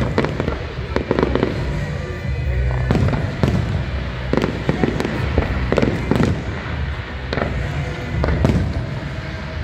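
Fireworks display: aerial shells bursting with about a dozen sharp bangs at irregular intervals, some in quick succession.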